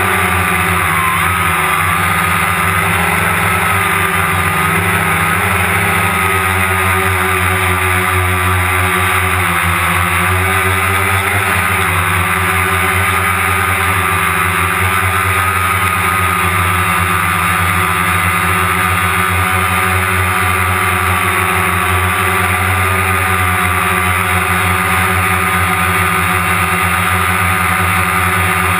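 DJI Phantom quadcopter's electric motors and propellers in flight, heard close up through the camera mounted on the drone: a steady whine whose pitch wavers slightly.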